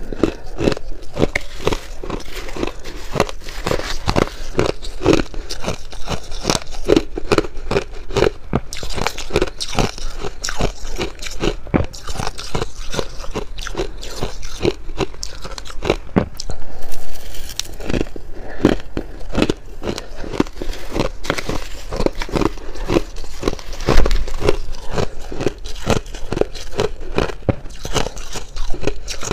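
Shaved ice being bitten and chewed, a rapid, continuous run of crisp crunches.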